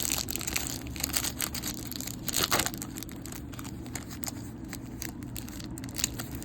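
Plastic poly-pack wrapper of a trading-card pack crinkling and being torn open by hand, with a louder crackle about two and a half seconds in.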